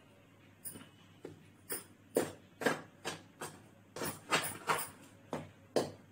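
Spoon stirring and scraping through crumbly gram flour in a stainless steel bowl, working in the hot oil: about a dozen irregular scrapes, louder and quicker from about two seconds in.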